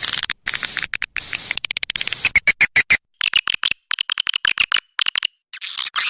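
Swiftlet calls from a lure recording meant to draw swiftlets: fast, buzzy chirping twitters repeated in bursts with short gaps, with a thinner, lower trill through the middle.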